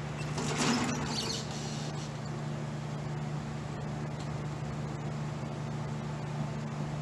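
Bridgeport knee mill table being traversed by hand along its ways: a brief squeaky scraping starts about half a second in and lasts about a second. A steady low hum runs underneath.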